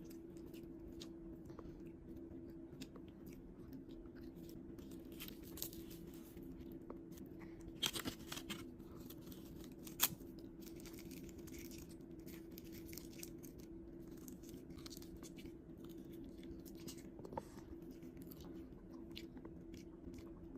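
Faint chewing and crunching of seaweed, with scattered small clicks and two sharper, louder crunches about 8 and 10 seconds in, over a steady low hum.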